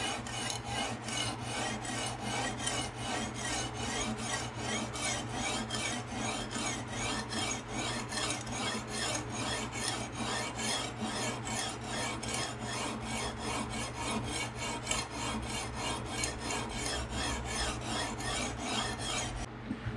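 Coarse 160-grit resin-bonded diamond stone rasping along a steel knife edge in a fixed-angle sharpening system, about two to three even back-and-forth strokes a second, stopping just before the end. It is the reprofiling stage, cutting a fresh bevel.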